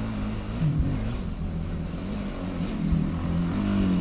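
Dirt bike engine running, its pitch rising and falling as the throttle is opened and closed.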